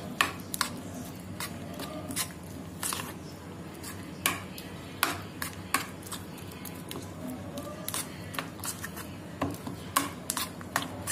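A spoon stirring potato slices through thick gram-flour batter in a bowl: irregular light clicks of the spoon against the bowl, about one or two a second.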